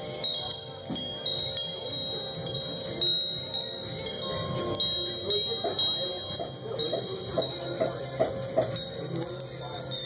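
Metal tube wind chimes ringing: many high, clear tones struck one after another at uneven times, each left ringing so they overlap.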